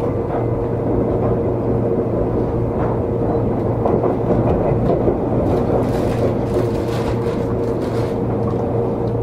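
Seibu 20000 series electric train running at speed: a steady rolling rumble with a held hum, and a run of short rail clicks about six to eight seconds in.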